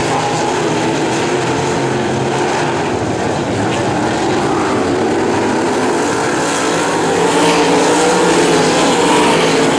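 Several winged sprint cars' V8 engines running together on a dirt oval, a steady loud drone that gets louder about seven seconds in as the pack passes close.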